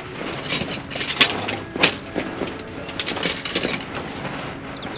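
Camping gear being handled and packed by hand: an irregular string of rustles, scrapes and knocks of canvas and bags.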